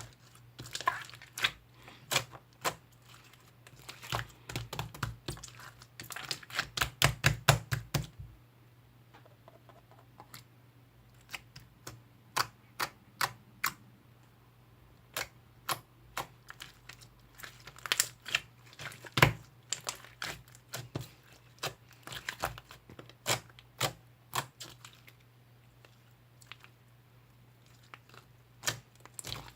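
Slime being squeezed and worked by hand, giving irregular runs of sharp clicks and pops in quick clusters. The clicks are dense for the first several seconds, then thin out to scattered pops, with busier runs again later.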